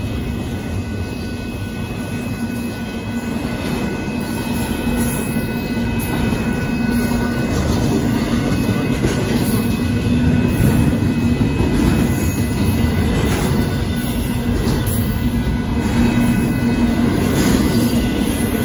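Union Pacific intermodal freight train's container cars rolling past close by, a steady heavy rumble of wheels on rail. A thin steady high-pitched squeal rides over the rumble for most of the time, and the rumble grows a little louder about halfway through.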